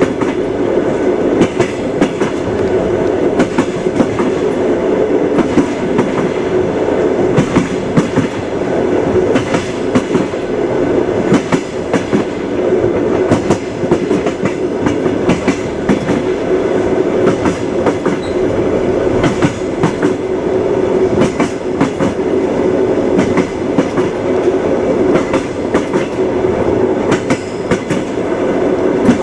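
Train wheels clattering over rail joints, with the steady rumble of the moving train and frequent sharp clicks throughout.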